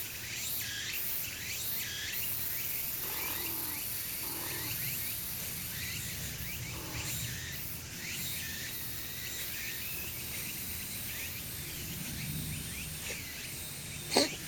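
Outdoor background of steady hiss with many faint, short, high chirps, then near the end a cat sneezes once, sharply.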